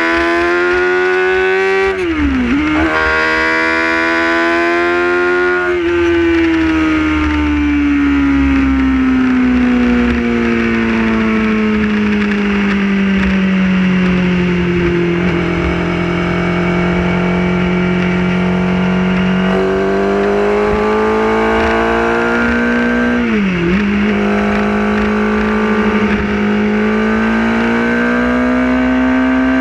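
Motorcycle engine heard from on board while riding. The revs rise, dip sharply at a gear change about two seconds in, then fall away and hold steady while cruising. They climb again after about twenty seconds, with another quick gear change near the end, all over wind rumble on the microphone.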